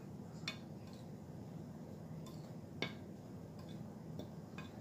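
A metal fork stirring flour and seasonings on a glass plate, giving a few scattered light clinks against the glass, the clearest near the middle.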